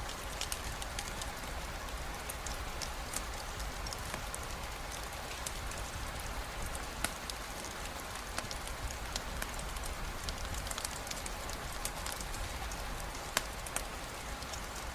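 Steady rain mixed with a crackling campfire: an even hiss of rainfall under many scattered sharp clicks and pops, with a louder pop about seven seconds in and another near the end.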